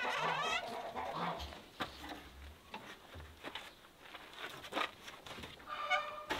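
Chickens clucking: a short bending call at the start and a longer held call near the end. Scattered clicks and knocks come from handling the wooden smokehouse door.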